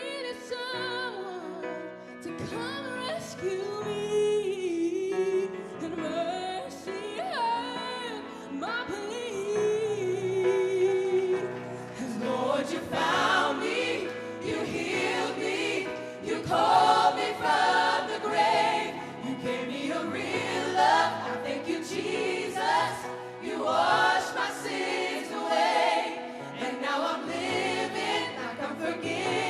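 Live worship band music with singing: a quieter, sparser passage with a gliding melody line, turning fuller and louder about twelve seconds in.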